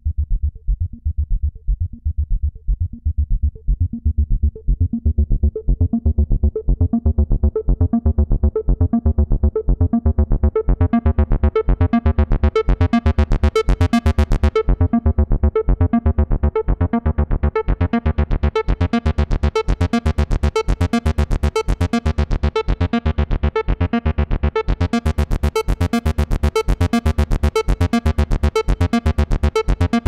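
Access Virus TI synthesizer playing a fast sequenced bass line of rapidly repeating notes while its filter cutoff is turned by hand. The sound starts dull and muffled and grows steadily brighter and buzzier over the first dozen or so seconds, darkens briefly about halfway through, and opens fully bright again in the last few seconds.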